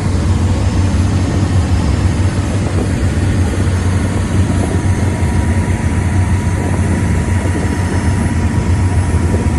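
A vehicle engine running steadily: a low, even drone with no changes in pitch or level.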